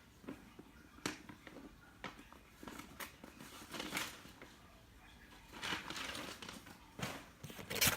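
Cardboard box and packing being opened and handled during an unboxing: scattered crinkles, rustles and light knocks, with a longer rustle about six seconds in and louder handling near the end.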